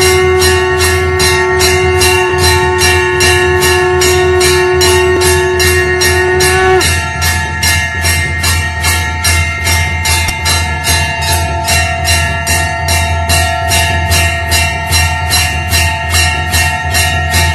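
A conch shell (shankh) blown in one long steady note that stops with a slight upward lift about seven seconds in. Under it, a temple bell is rung fast and evenly, about three to four strikes a second, its ringing carrying on alone after the conch stops.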